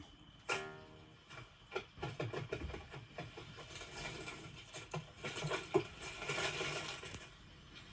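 Animated-film sound effects: a clatter of many small, rapid taps and clicks, with a short pitched squeak about half a second in and a hissing rustle that swells around six to seven seconds and then dies away.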